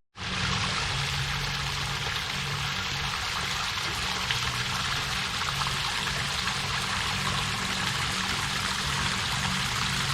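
Waterfall: a steady rush of falling water, cutting in sharply just after a momentary gap at the start.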